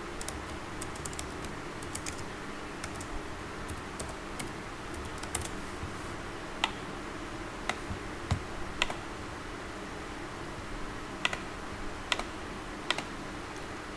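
Computer keyboard typing: a run of key clicks in the first few seconds, then a handful of separate clicks spaced out over the rest, over a steady background hiss.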